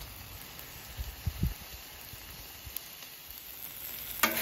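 Faint steady sizzle of chopped beef and cheese sauce on a hot steel griddle top, with a few soft low bumps about a second in. Near the end a metal spatula starts scraping across the griddle with sharp strokes and a louder sizzle.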